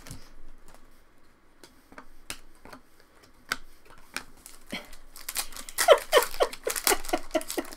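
Trading cards being handled and slid through the hands, with scattered soft clicks. About five seconds in, a foil card pack wrapper is crinkled and torn open in a denser run of crackling.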